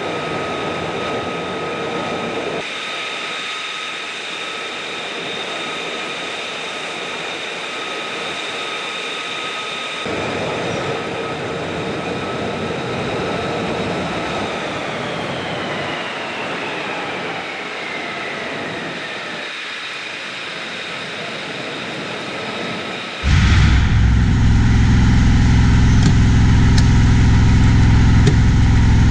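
High-pitched jet turbine whine from aircraft on a flight line, several steady tones over a noisy rush, with one tone sliding down about halfway through as a turbine winds down. Near the end the sound changes abruptly to a much louder, low, steady engine hum.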